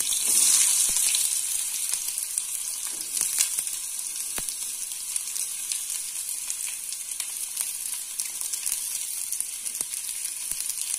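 Chopped small onions going into hot oil in a kadai, sizzling: the frying hiss flares as they hit the oil and settles into a steady sizzle. A few light clicks sound over it.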